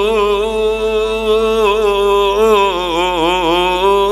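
A man reciting the Quran melodically (tarannum) with a single long note drawn out on the verse ending 'la'allakum tattaqun'. The note wavers in ornamented turns about two and a half seconds in.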